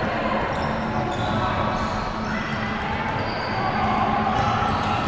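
Ball game in a large echoing indoor hall: a ball thudding on the floor with players' voices in the background.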